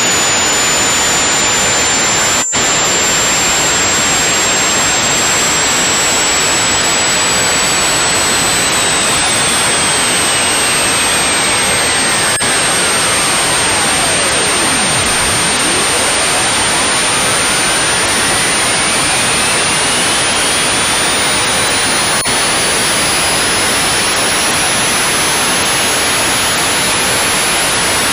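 Power electronics harsh noise: a loud, unbroken wall of static-like noise. A thin tone sweeps down to the bottom about halfway through and climbs back up, while a high whistle slowly rises. The noise drops out for an instant about two and a half seconds in.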